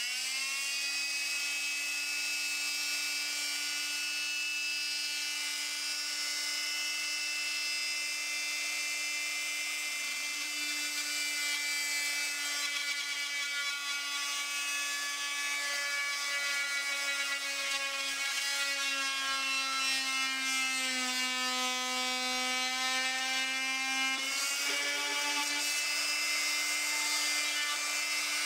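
Electric oscillating multi-tool with a round fine-toothed blade running at high speed while cutting a thin fiberglass sheet, a steady high buzz. It comes up to speed at the start, and its pitch dips slightly for a few seconds past the middle, then recovers.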